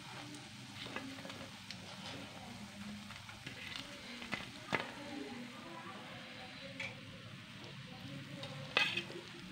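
Besan phulkis (gram-flour fritters) sizzling as they deep-fry in hot oil in a pan. A few sharp clicks of a metal slotted spoon against the pan come as they are turned and lifted out, the loudest near the end.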